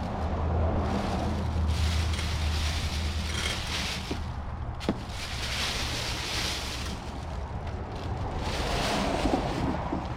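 Wind buffeting the microphone as a steady low rumble, with several bursts of rustling hiss and a single sharp click about five seconds in.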